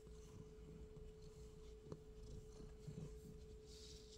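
Near silence: a faint steady hum held at one pitch, with a few soft rustles and a small tick about two seconds in.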